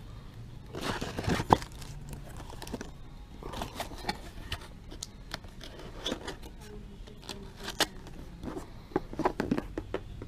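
Crinkling and rustling, as of something being handled, with scattered light clicks and knocks. A sharper, louder click comes about a second and a half in.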